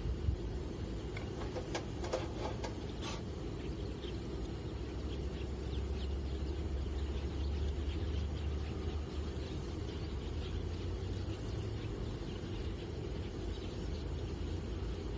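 Low, steady rumble of wind on the microphone, swelling for a few seconds midway, with a few light clicks in the first few seconds.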